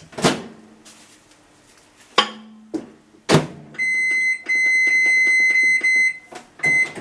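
Microwave oven being loaded and set: a few clicks and a door clunk, then a high electronic beep held for about two seconds with brief breaks, and one short beep near the end as it is started.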